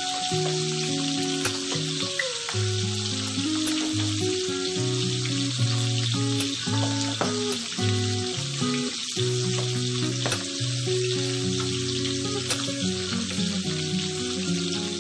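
Milkfish (bangus) steaks shallow-frying in hot oil in a non-stick pan, a steady sizzle and crackle of bubbling oil. Background music with changing held notes plays over it.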